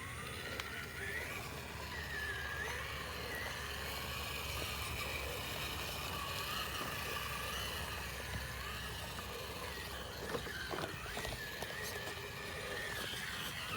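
Electric motor and gear drivetrain of an RC scale crawler whining, its pitch rising and falling unevenly as the throttle is worked, with scattered clicks and knocks from the truck crawling over the trail.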